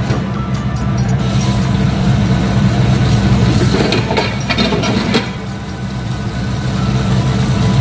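Steady low hum of a running motor or fan, with a few light clicks about four to five seconds in.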